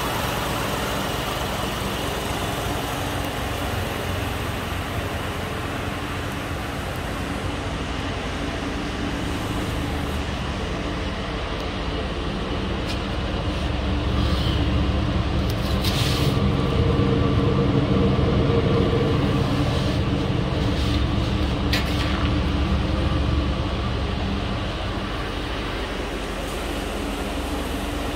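2005 Chevrolet Colorado's 3.5-litre inline-five idling steadily, louder for several seconds in the middle, with a couple of brief clicks.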